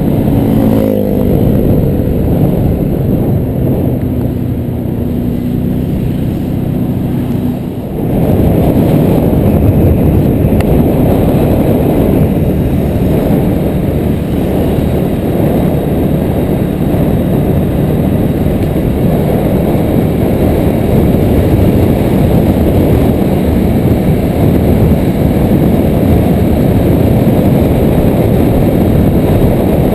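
A moving vehicle's engine hums steadily under wind rushing over the camera's microphone. About eight seconds in, the wind noise grows louder and covers the engine for the rest of the ride.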